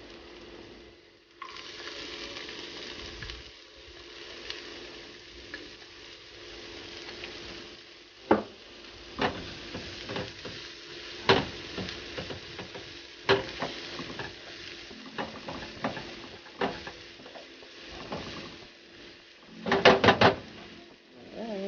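Chopped red onion and garlic sizzling in hot oil in a frying pan, the hiss starting about a second in as the onion goes in. Tongs stirring the pan give sharp taps and clicks on the metal throughout, with a quick cluster of them near the end.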